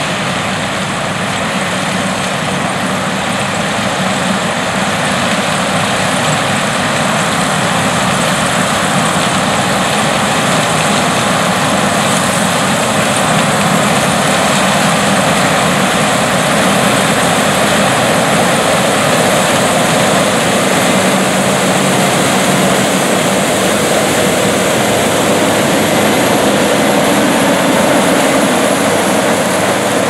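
New Holland CR8090 combine harvesting corn, its engine and threshing machinery running steadily. It grows gradually louder as it approaches and passes close near the end.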